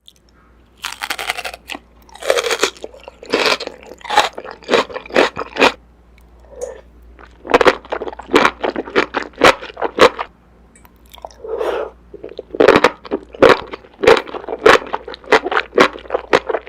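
Loud crunching and chewing of crisp food in the mouth, in runs of several quick crunches a second broken by two short pauses.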